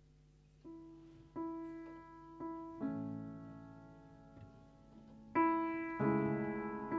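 Slow piano music begins about half a second in, with single notes and then chords, each struck and left to ring away. It grows fuller and louder about five seconds in.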